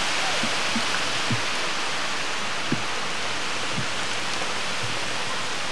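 Heavy hurricane rain pouring steadily onto a paved street, a dense even hiss. Scattered louder drips land close by, one standing out just under three seconds in.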